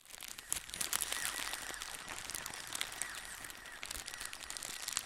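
Dense crackling, crinkling noise made of many rapid small clicks, starting suddenly out of silence and keeping up steadily.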